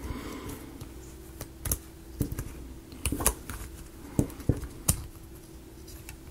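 Small wooden model-kit pieces clicking and tapping against each other as they are handled and worked into notches, in irregular sharp clicks.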